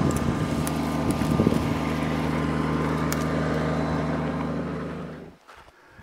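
Compact tractor's engine running steadily at a constant speed, fading out about five seconds in.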